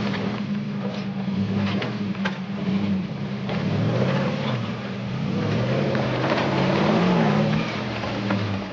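4x4 engine working up a rocky trail climb, its note rising and falling with the throttle, with scattered sharp clicks and knocks from the climb.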